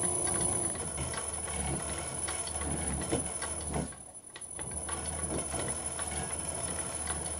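VFD-driven electric motor of an old bench lathe running slowly through its V-belt drive: a steady low hum with a light, regular ticking. The motor vibration grows more pronounced as the speed comes down, with the drive's torque compensation set to 30. The level dips briefly about four seconds in.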